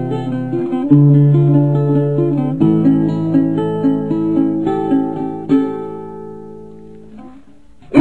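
Slow picked guitar: a repeating pattern of single plucked notes over low held bass notes, fading away over the last couple of seconds.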